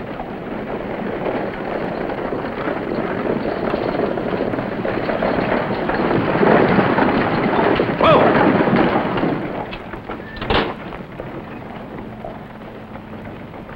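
Horse-drawn stagecoach rolling up the dirt street and pulling to a stop: a rumble of hooves and wheels that grows louder, peaks about two-thirds of the way through, then drops away. A single sharp knock comes near the end.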